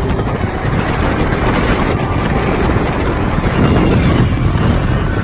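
Roller coaster train running along its steel track: a steady rumble of the wheels with wind rushing over the microphone, growing a little louder about four seconds in.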